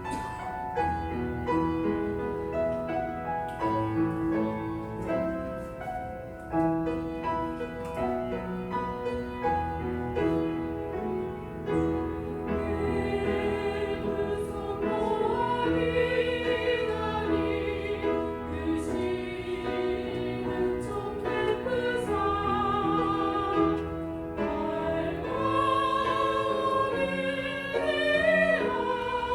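Church choir singing an anthem with piano accompaniment. The piano plays alone at first, and the choir's voices come in about twelve seconds in.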